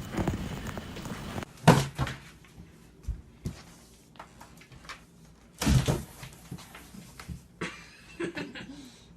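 Two loud thumps about four seconds apart, with lighter knocks and clicks between and after them.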